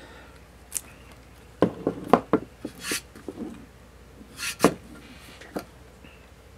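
A painted recipe card box with metal hinges and corners being handled on a table: sharp knocks and clicks as it is picked up, turned over and its lid swung open, with a quick cluster of knocks early on and a rustle with a knock about four and a half seconds in.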